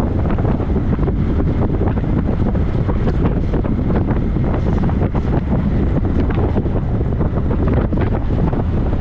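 Wind buffeting the microphone: a loud, steady low rumble full of quick crackling gusts.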